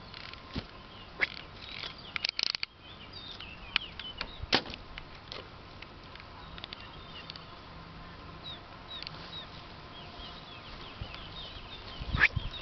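Birds chirping faintly here and there over a quiet field, with scattered sharp clicks. A short rapid flurry of taps comes about two seconds in, and a louder rustle near the end.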